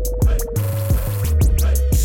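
Background music with a steady beat: kick drum and hi-hat hits under a held note.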